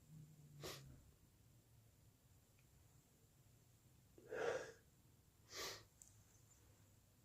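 A person sneezing wetly: a faint short breath under a second in, then a sneeze about four and a half seconds in and a second, hissier burst about a second after it.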